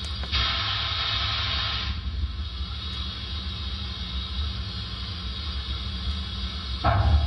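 Model steam locomotive sound from a Broadway Limited HO-scale K4s, played through the Rolling Thunder subwoofer system: a steady, very deep rumble, with a hiss of steam from about half a second in that lasts over a second, and a louder burst near the end.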